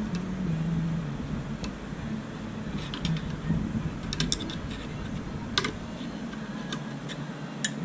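A pointed hand tool scraping and clicking against the end of a metal tube clamped in a bench vise. There are scattered sharp clicks over a steady low hum.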